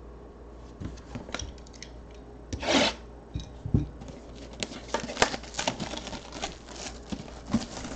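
A sealed cardboard trading-card box being opened and handled: a longer scrape about three seconds in, like a blade drawn across the wrapper, then a run of crinkles and light clicks as the box is turned over in the hands.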